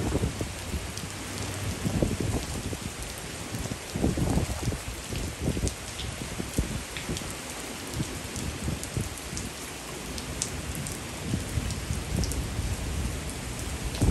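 Heavy hurricane rain falling and spattering steadily, with uneven low rumbling surges, the strongest about four seconds in.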